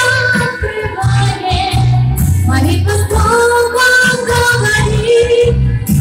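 A woman singing a worship song into a microphone, holding long notes over a backing track with a steady low bass beat.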